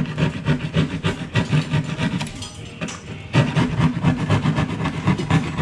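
Drywall being cut and scraped at the edge of a round ceiling hole to trim its angle: rapid rasping strokes, with a pause of about a second halfway through.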